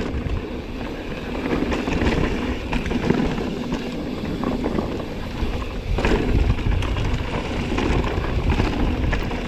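Mountain bike descending a rooty dirt trail: a continuous rumble of knobby tyres over dirt and roots, with many sharp clicks and knocks from the chain and frame rattling over the bumps, rougher and louder for the last few seconds.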